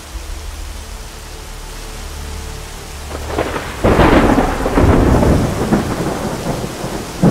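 Heavy rain in a storm, over a low steady rumble. About four seconds in it swells into a much louder, coarse rush.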